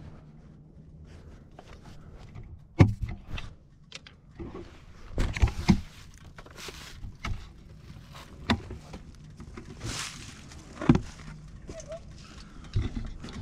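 Handling noise from a camera on a hand-held stick: irregular knocks and rustles as it is gripped and moved about, the sharpest knock about three seconds in. No engine is running.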